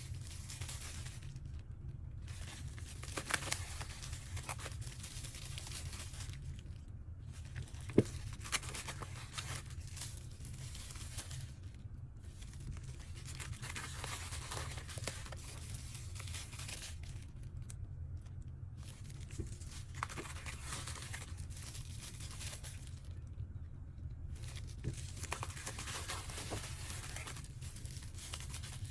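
Packaging being torn and crinkled by hand during an unboxing, in stretches of rustling with short pauses, and one sharp click about eight seconds in.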